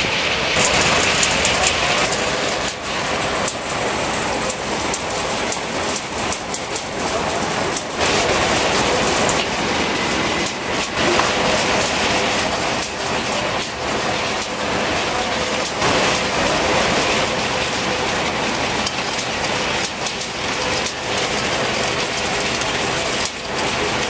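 Circular sawmill driven by a 1917 Case steam engine, running: a dense, steady clatter and rush from the saw blade and log carriage, with frequent sharp knocks.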